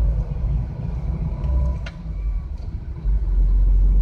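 Minibus engine and tyre noise heard from inside the cabin while driving: a steady low rumble that eases off briefly about two seconds in and then swells again, with a single sharp click just before the dip.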